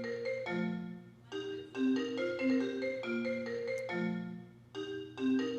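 FaceTime incoming-call ringtone playing through a church PA system: a bright, marimba-like melody of quick notes that repeats in short phrases, pausing briefly between rings.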